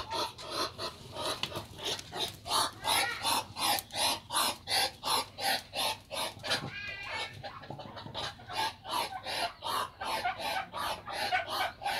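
Muscovy ducks calling in a fast, steady series of short, harsh quacks, about three or four a second, with a higher, wavering call about seven seconds in.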